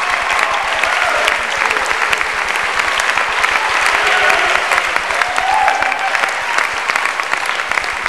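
Basketball crowd clapping steadily, with voices shouting over it.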